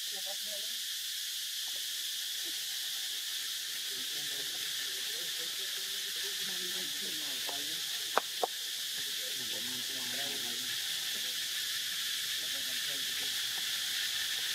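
Steady, high-pitched chorus of insects such as crickets or cicadas, with two sharp clicks close together a little past the middle.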